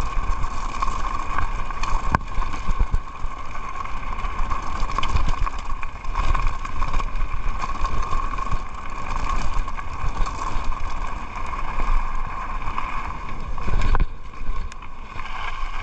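Mountain bike rolling over a gravel and dirt track: tyres crunching and the bike rattling over stones, with scattered knocks and a steady whine under it.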